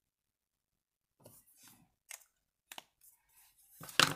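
Plastic felt-tip markers being handled: a few faint rubs and two small clicks, then a louder short clatter near the end as a marker is set down among the other markers.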